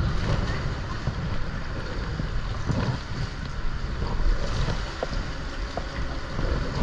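Fast river current rushing and splashing around a plastic kayak, with wind rumbling on the microphone.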